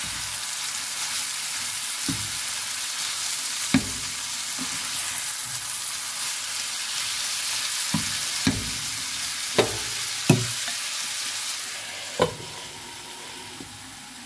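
Shredded cabbage with peppers, carrot and leek sizzling in oil in a frying pan while being stirred with a wooden spatula, which knocks against the pan several times. The sizzle eases off a little near the end.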